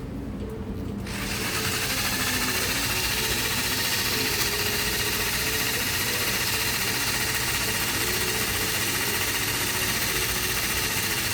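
A small motor running steadily with a vibrating buzz, starting about a second in.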